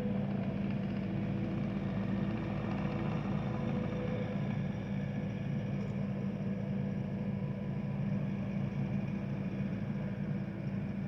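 An engine idling steadily, a continuous low hum with no change in pace.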